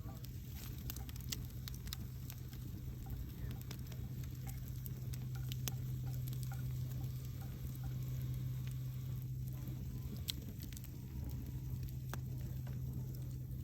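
Campfire burning: wood crackling with frequent sharp pops over a soft hiss, with a steady low hum underneath.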